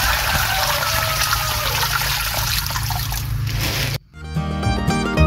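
Water trickling steadily into a small diorama pond from a miniature water pump, over a low steady hum. About four seconds in it cuts off abruptly and plucked-string music starts.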